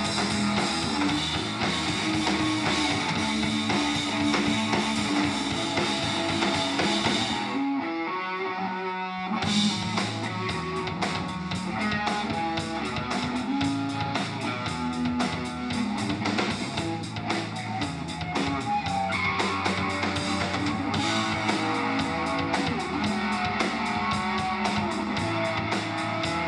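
Live rock band playing an instrumental passage on electric guitars, bass and drum kit. About a third of the way in, the drums and low end drop out for about two seconds, leaving a few held notes, then the full band comes back in.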